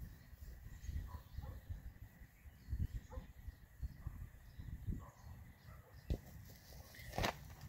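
Soccer ball dribbled across grass, several soft thumps over wind rumble on the microphone. Near the end comes one sharper, louder hit as the ball is struck at the goal.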